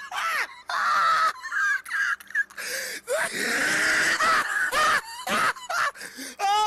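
A person laughing hard in breathy, broken bursts.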